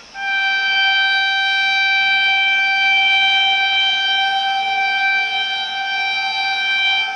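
Indian Railways electric locomotive's air horn sounding one long, loud, steady blast of about seven seconds that starts suddenly and cuts off near the end.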